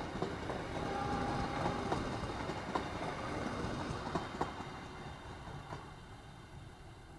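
A train rolling past on the rails, its wheels clacking over the rail joints in irregular clicks, then fading away over the last couple of seconds.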